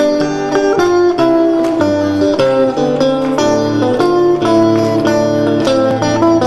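Stratocaster-style electric guitar playing an instrumental melody, single notes in quick succession over lower sustained notes.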